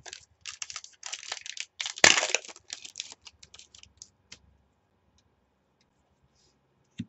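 A trading-card pack's wrapper being torn open and the cards slid out by hand: a run of crinkling and rustling lasting about four seconds, with the loudest tear about two seconds in.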